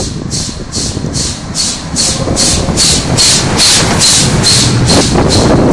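Steam locomotive No. 461 chuffing past at low speed, its exhaust beating evenly at about two and a half beats a second over a low rumble, loudest about four seconds in as it goes by.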